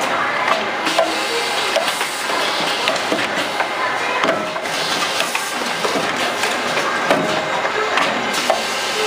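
Insole production line machinery running: a steady mechanical clatter of rapid, irregular clicks and knocks over a noisy hum.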